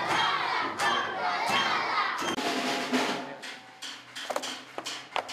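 A group of voices shouting and yelling together over drum-like thumps. It dies down after about two seconds, leaving a few scattered knocks.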